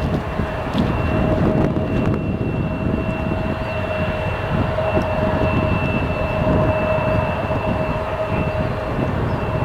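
British Airways Airbus A380's Rolls-Royce Trent 900 jet engines running with a steady rumble and two steady whining tones, one mid and one high.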